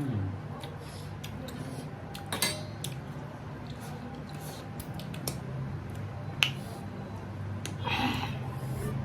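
Eating at the table: scattered clicks of chewing and of utensils touching plates, with two sharper clinks, one a little before halfway and one past the middle, over a low steady hum.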